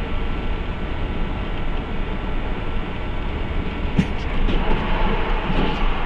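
Steady rumble of a moving vehicle, with a sharp knock about four seconds in followed by a few lighter clicks and rattles.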